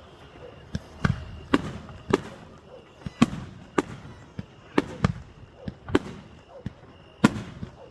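Fireworks going off in a rapid, irregular series of sharp bangs, more than one a second, each followed by a short echo.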